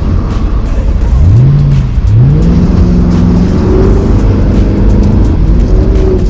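Rally car engine revving up about a second in, dipping near two seconds, then climbing again and holding at high revs, over a steady low rumble of the running car.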